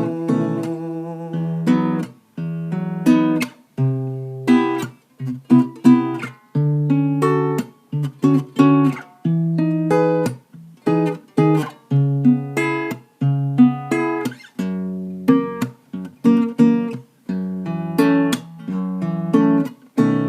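Acoustic guitar playing an instrumental interlude, with chords strummed and plucked in a steady rhythm.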